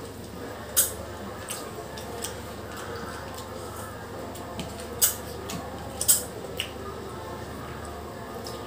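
Eating at a table: a few sharp clicks and taps of cups, bowls and utensils, the loudest about five and six seconds in, with quiet chewing and handling over a low steady hum.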